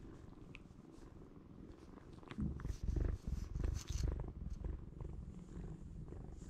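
Kitten purring, a steady low rumble, with louder rustling from about two and a half to four seconds in while one kitten grooms the other's head.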